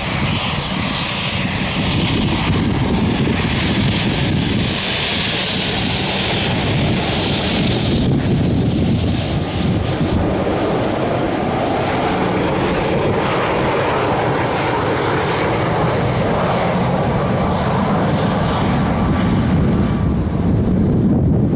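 Aircraft engines running loud and steady. A higher hiss carries the first several seconds and gives way to a lower rumble about halfway through.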